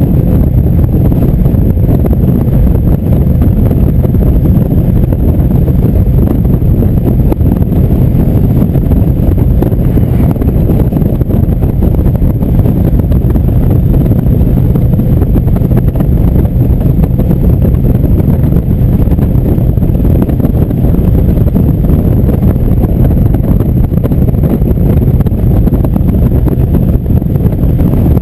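Indian V-twin motorcycle cruising steadily at highway speed: a constant engine drone under heavy wind rush on the microphone.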